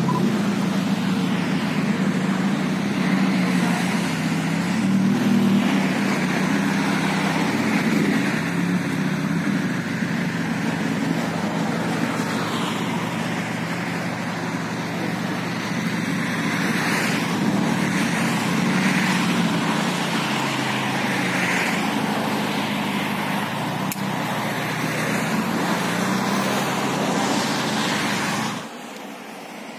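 Ferrari Roma's 3.9-litre twin-turbo V8 running at a low, steady idle while the car creeps along at walking pace. The sound drops off abruptly near the end.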